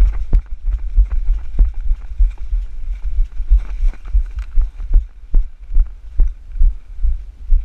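Heavy low thuds of walking footsteps jolting a body-worn camera, about two a second, with light rustling and small clicks of gear in between.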